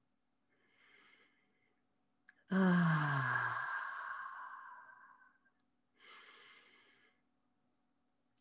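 A woman breathing deeply. A soft inhale comes first, then a long audible sigh whose voice falls in pitch and trails off into a breathy exhale over about three seconds, then another soft inhale.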